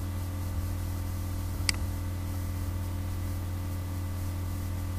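Steady low electrical hum and hiss from the recording setup, with a single computer-mouse click about a second and a half in as a workspace is picked from a drop-down menu.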